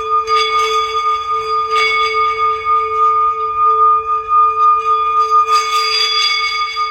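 Singing bowls ringing with a sustained, gently wavering tone. They are struck again about a third of a second in, near two seconds and about five and a half seconds in, and each strike brings out brighter overtones.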